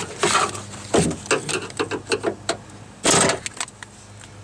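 Door latch rods and their plastic retaining clips being unhooked from the inside door handle inside a car door: a string of sharp clicks and rattling taps, with a louder scrape about three seconds in.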